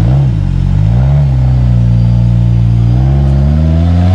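Four-wheel-drive competition truck's engine revving under load, its pitch dipping and rising a couple of times, then climbing steadily over the last two seconds.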